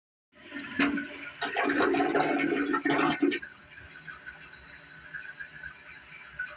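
Toilet flushing: a sharp knock a little under a second in, then a loud rush of water for about two and a half seconds that drops off suddenly into a quieter trickle as the water settles.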